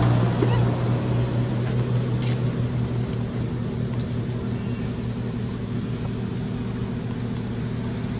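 A steady low motor hum under a constant hiss, with a few faint ticks.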